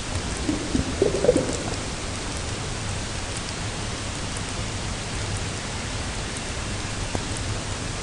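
Steady heavy rain, with a brief low pitched sound about a second in.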